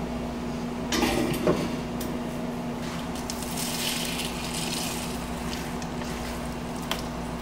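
Lodge cast iron skillet set down on a gas stove's iron grate, knocking a couple of times about a second in, then a serving spoon crunching and scraping through the crisp baked breadcrumb crust of macaroni and cheese. A low steady hum runs underneath.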